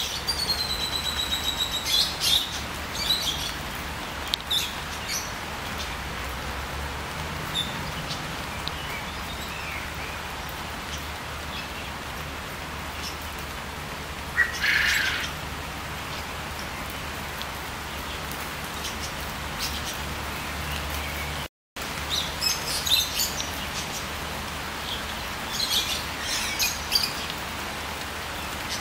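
Songbirds singing in short whistled phrases, thickest at the start and toward the end, over the steady patter of rain on trees. The sound cuts out completely for a split second about three-quarters of the way through.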